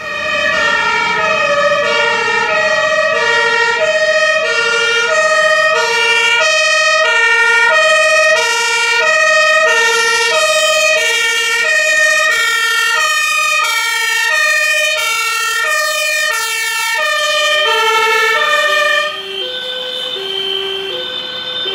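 Fire engine's two-tone siren (Martinshorn), switching between a high and a low tone about every half second as the Mercedes-Benz Atego fire engine approaches. Near the end it drops in pitch and gets quieter as the truck passes.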